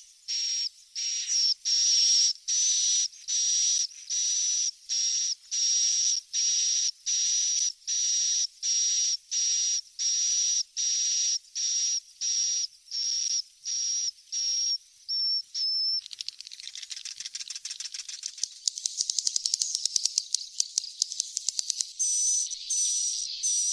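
Swiftlet lure call played as a recording: high, evenly repeated chirps about two a second. About 16 seconds in they give way to a dense, rapid twittering chatter with quick clicks for several seconds, and the chirps return near the end.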